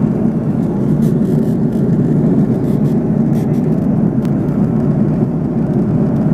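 Steady cabin noise of an airliner in cruise flight: jet engines and rushing air heard inside the cabin at a window seat, a constant low rumble.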